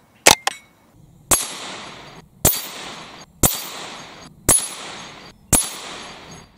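Moderated Smith & Wesson M&P 15-22 semi-automatic .22 rimfire rifle firing: a sharp double crack of shot and strike just after the start, then five shots about a second apart, each hitting a steel spinner target and followed by a ring that dies away over most of a second.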